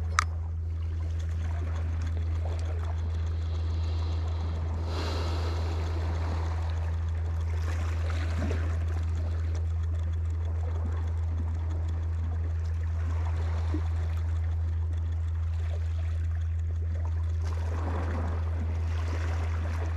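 Seawater lapping and washing against the rocks, swelling and easing in waves over a steady low hum, with one sharp click just after the start.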